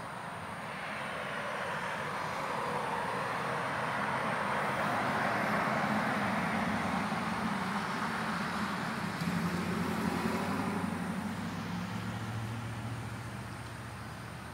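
A vehicle passing by: a broad rush of noise with a low drone that swells to a peak about six seconds in and then fades away.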